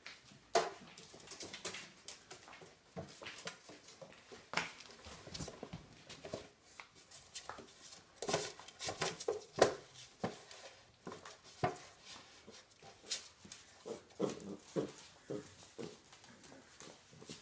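Two Scottish terriers tugging at a cloth, making short, irregular growls and yaps amid scuffling sounds, loudest in two flurries in the middle and near the end.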